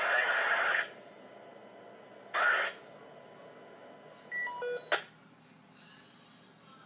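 A loud, radio-like noisy sound cuts off a little under a second in. It is followed by a brief burst of noise, then a quick run of short electronic beeps at different pitches, ending in a sharp click.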